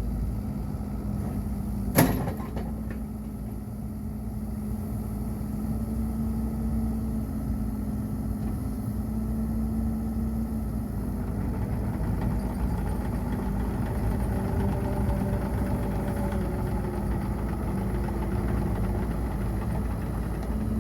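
Bobcat E50 compact excavator's engine idling steadily, with one sharp knock about two seconds in.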